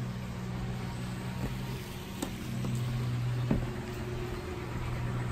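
A steady low mechanical hum with a hiss behind it, and a couple of short light clicks about two and three and a half seconds in.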